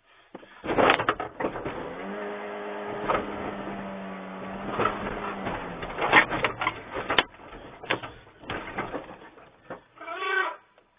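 An elephant battering a truck, heard from inside the cab: repeated loud bangs and crashes of the vehicle body, the first about a second in. A long steady pitched sound runs for about three seconds from two seconds in, and a short pitched call comes near the end.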